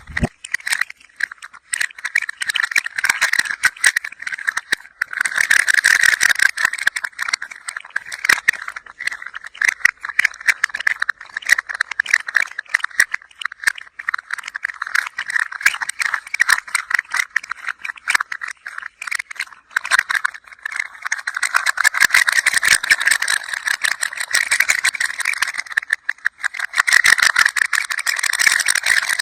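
A toy rattling as it is moved, a dense stream of fast clicks that swells and eases in waves.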